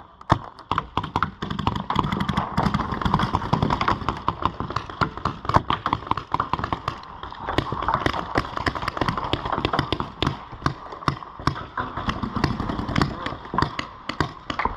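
Paintball markers firing, many sharp pops in quick irregular volleys.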